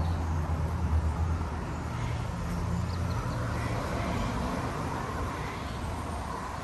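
Low motor hum with a steady pitch, fading over the first couple of seconds, over steady outdoor background noise.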